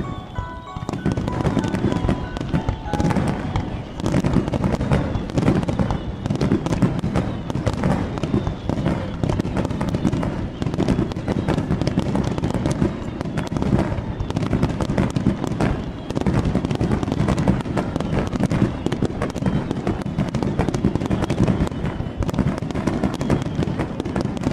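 Fireworks display going off as a dense barrage, many bangs and crackles overlapping without a break. Faint chime-like music fades out in the first few seconds.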